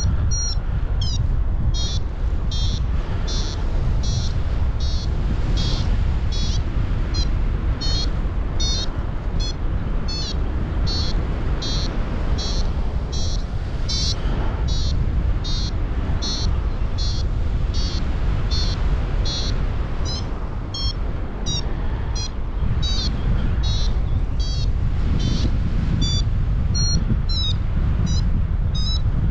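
Paragliding variometer beeping in short high beeps, about one and a half a second, that shift in pitch: the vario's climb signal, telling the pilot the glider is rising in lift. Under it is a steady rush of wind buffeting the microphone.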